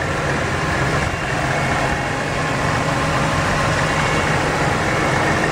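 BMW M3's 3.2-litre inline-six with a K&N cone-filter intake, idling steadily, heard close up from the open engine bay.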